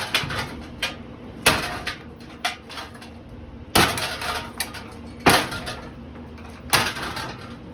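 A series of hard blows smashing a Litex Schuster hugger ceiling fan, about five heavy strikes with lighter knocks between them, each followed by a brief clattering ring from the fan's housing and parts.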